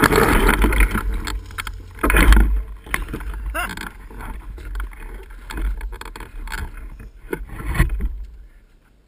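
Dirt bike engine running loud on a steep climb, with a burst of revs about two seconds in, then uneven short revs as the back wheel slips into a hole and the bike goes over. The engine stops shortly before the end.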